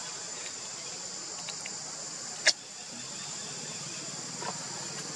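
Insects buzzing steadily at a high pitch, with one sharp click about two and a half seconds in.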